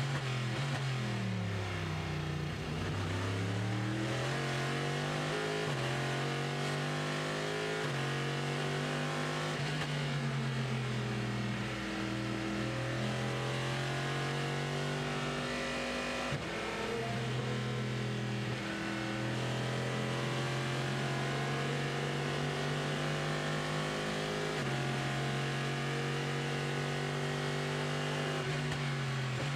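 Corvette C6.R GT race car's 5.5-litre V8 at full race pace, heard onboard. The engine note climbs through the gears and drops sharply at each shift, with a deep dip and recovery in pitch within the first three seconds as the car brakes, downshifts and accelerates again.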